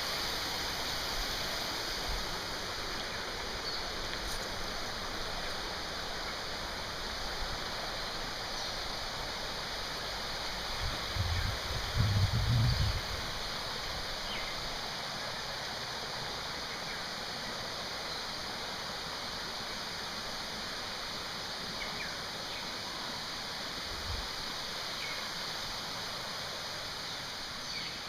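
Steady rush of falling water from a waterfall into a pool. A brief low rumble on the microphone comes about twelve seconds in, and a smaller thump near the end.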